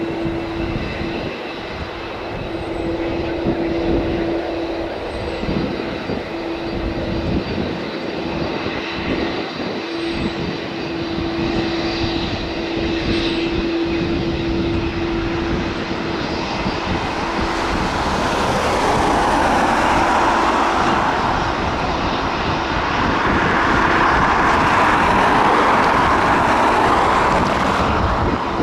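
Jet airliner engines: a faint whine at first, then a rushing noise that swells over the last ten seconds or so as the aircraft goes by. A steady low hum runs underneath.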